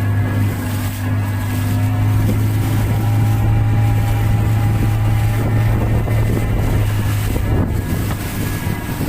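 Motorboat engine running steadily with a low, even drone, with wind buffeting the microphone and water rushing past the hull.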